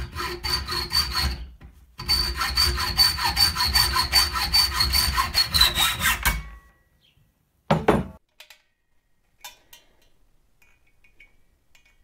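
Hacksaw cutting through a steel bolt clamped in a bench vise, shortening it: quick back-and-forth strokes with a high ringing squeal from the blade. There is a brief pause about 2 s in, and the sawing stops after about six and a half seconds. A single short thump follows, then faint small clicks.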